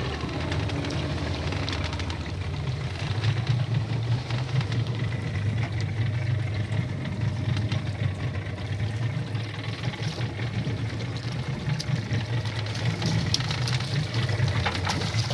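Small fishing boat's engine idling with a steady low drone. Near the end, water splashes as a wire fish trap is lifted out through the surface.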